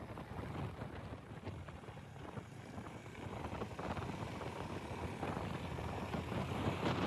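Wind and road noise on a moving motorcycle's microphone: a low rumble with a gusty hiss, growing louder toward the end.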